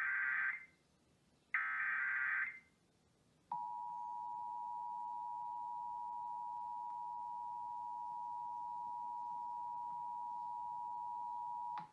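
Emergency Alert System test broadcast: the last two bursts of the SAME header, each about a second of harsh warbling digital data tones. About a second later comes the EAS attention signal, the steady two-tone 853 and 960 Hz alarm, held for about eight seconds and cutting off just before the end.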